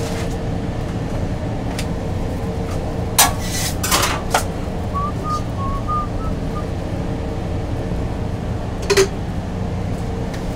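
Food truck kitchen: a steady hum from the ventilation and cooking equipment, with a faint constant tone, broken by a few sharp clatters of utensils and containers about three seconds in, around four seconds, and near nine seconds.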